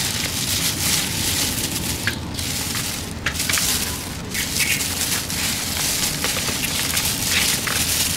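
Hand in a plastic glove mixing and squeezing beef tripe and shredded banana flower salad in a plastic bowl: a continuous crackly rustling and crinkling of the plastic glove and the food.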